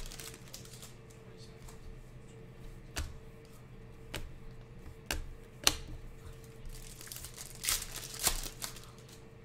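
Plastic trading-card packs being handled and torn open: wrappers crinkling and tearing, with a handful of sharp clicks and snaps spread through, the loudest about five and a half seconds in.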